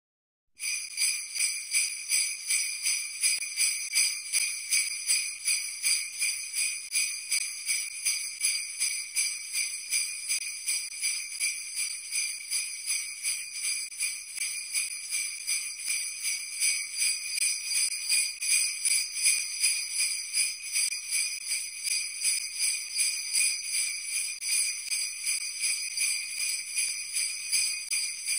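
Sleigh bells shaken in a steady rhythm, about two to three shakes a second, starting about half a second in.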